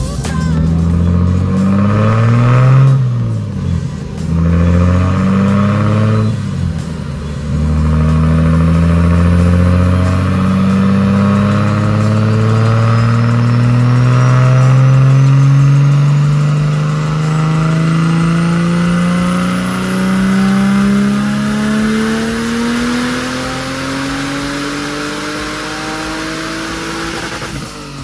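Turbocharged BMW M50B28 inline-six running on a chassis dynamometer. It gives a few short revs, then from about eight seconds in a long full-throttle pull, its pitch climbing steadily for about twenty seconds, with a faint high whistle rising alongside.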